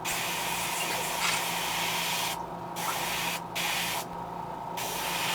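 Airbrush spraying paint onto a crankbait lure, a steady hiss that stops briefly a few times, about halfway through and again near the end.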